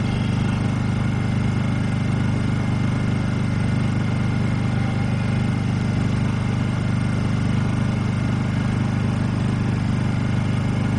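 Honda EU2000i inverter generator's single-cylinder four-stroke engine running at a steady even hum with Eco Throttle on and no load.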